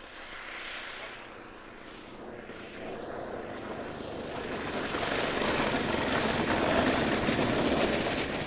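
Radio-controlled scale tow plane's engine and propeller running as the model lands and taxis, growing steadily louder over the first five seconds or so and then holding.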